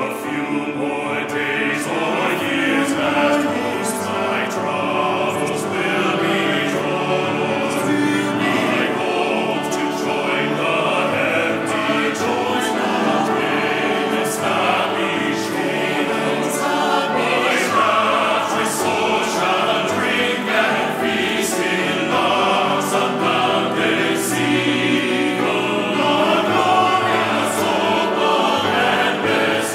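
Mixed church choir singing a hymn in parts, accompanied by grand piano.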